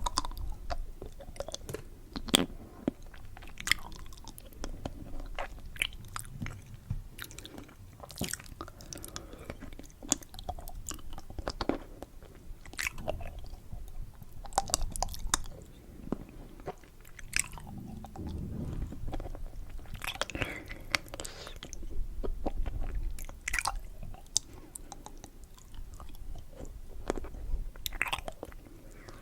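Candy being chewed and crunched close to the microphone: irregular crisp clicks and crackles with occasional wet mouth smacks.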